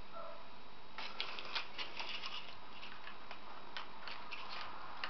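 Irregular series of small, sharp plastic clicks and ticks from hands working on a laptop's plastic screen lid, starting about a second in.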